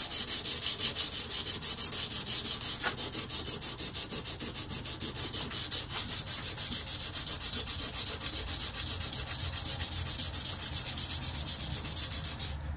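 Steel KA-BAR knife blade being hand-sanded with a folded piece of sandpaper, rubbing off the blackened finish toward bare steel. The sandpaper rasps in quick, even back-and-forth strokes and stops abruptly just before the end.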